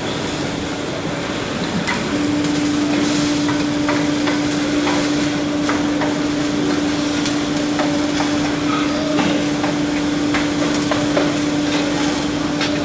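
Robotic GMAW (MIG) welding arc crackling and sizzling steadily, with many sharp spatter pops. A steady low hum comes in about two seconds in.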